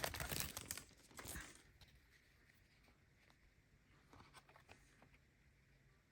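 Trading cards being handled: a faint rustle and slide of cards for about the first second and a half, then near silence broken by a few light clicks.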